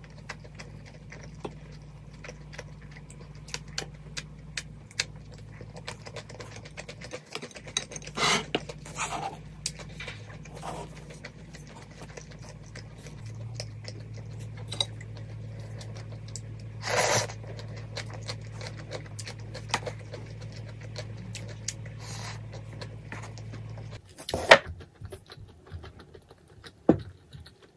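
Close-up eating sounds: wooden chopsticks clicking and scraping in a paper cup of jjajang cup ramen, with a few short slurps of noodles, over a steady low hum that cuts off near the end.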